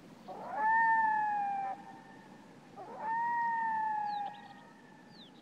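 Two long, drawn-out animal calls, each steady in pitch and sagging slightly toward its end, a little over a second apart, with a third call starting right at the end. A few faint short high chirps come in between.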